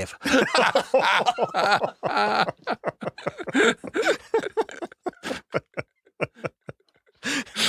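Men laughing in bursts at a joke, the laughter thinning out and dying away toward the end.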